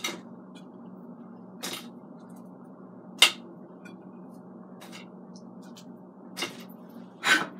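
Short, scattered clinks and knocks of ceramic dishes and metal bangle bracelets as chicken wings are picked up by hand and set into a bowl; one sharp clink about three seconds in is the loudest. A steady low hum runs underneath.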